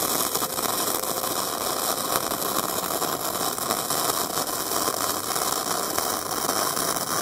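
Flux-core welding arc from a Harbor Freight flux-core welder crackling steadily as a bead is run on mild steel exhaust pipe.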